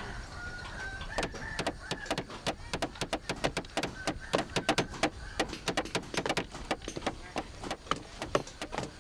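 Rapid run of sharp clicks or taps, about five a second, starting a second in. Birds chirp faintly over the first half.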